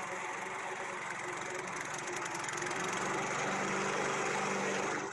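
Lawn mower engine running steadily, then cutting off sharply at the end.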